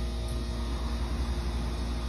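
Steady low hum with a constant hiss; no separate knocks or pours stand out.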